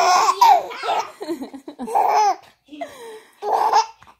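Baby laughing in three bursts, near the start, about two seconds in, and shortly before the end.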